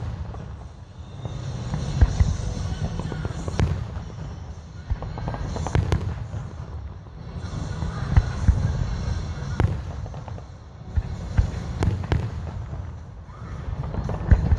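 Aerial fireworks shells fired from river barges, bursting in a steady string of booms about every second or two, with crackling and a low rumble between them. The booms reverberate off a large nearby structure.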